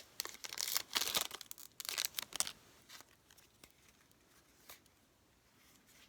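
Foil card-pack wrapper being torn and crinkled in quick rustling bursts for about two and a half seconds, then only a few faint handling clicks.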